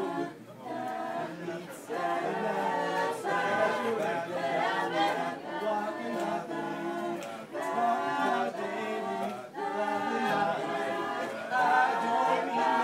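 A crowd of men and women singing together without accompaniment, in phrases with a few brief pauses.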